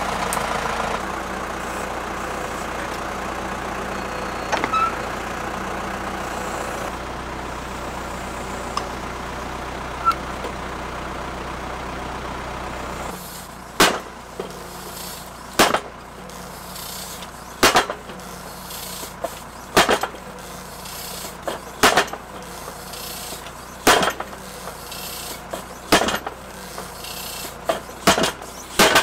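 Tractor engine running steadily while the tractor-mounted post driver stands ready. Then the post driver's 300 kg weight strikes a wooden fence post about every two seconds, each blow a sharp double knock, driving the post into the ground.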